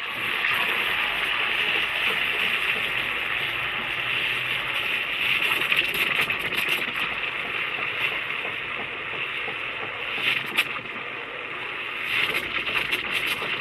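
Steam wand of a Morphy Richards Europa espresso machine frothing chilled milk in a mug: a steady hiss, briefly louder about ten seconds in.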